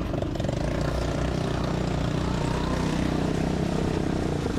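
ATV engine running steadily while riding, a continuous low drone.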